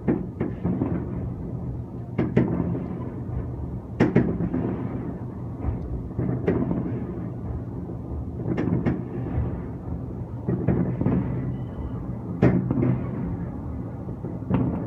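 Fireworks bursting overhead: irregular booms every second or two, each echoing off into a rumble. A steady low drone runs underneath.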